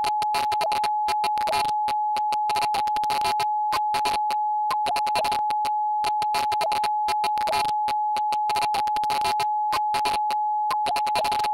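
A steady electronic tone held at one pitch, like a telephone line tone, with irregular crackling clicks over it.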